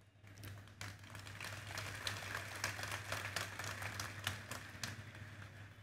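Large crowd applauding: many dense, scattered claps that build over the first second or two and thin out near the end. A steady low hum runs underneath.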